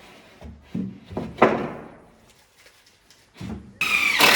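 Timber being handled on a workbench: a few knocks and thuds about a second in, then a loud short squeak near the end, falling slightly in pitch.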